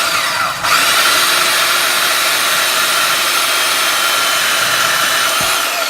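Harbor Freight electric chop saw running and cutting through a metal bracket. It dips briefly under a second in, then holds steady, and begins to wind down with a falling pitch near the end.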